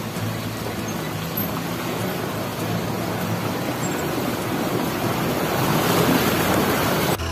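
Off-road jeeps driving through a shallow rocky stream: a steady rush of engine and splashing water noise that grows louder toward the end.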